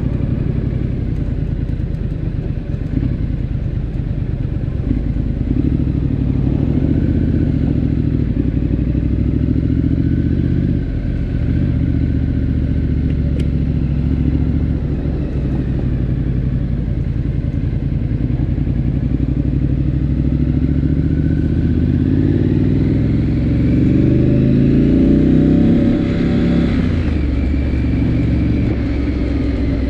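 Triumph Scrambler 900's parallel-twin engine running on the move, with wind rush over the microphone. The revs climb over several seconds late on and then drop back suddenly, as at a gear change.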